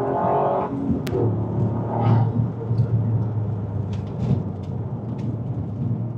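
Toyota GR Yaris driving at a steady pace: a steady low drone from its turbocharged three-cylinder engine under a dense rumbling noise of wind on the microphone and road noise.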